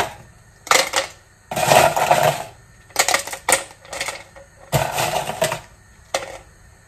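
Ice cubes from the freezer clattering into a cup in about five separate bursts, a few cubes at a time.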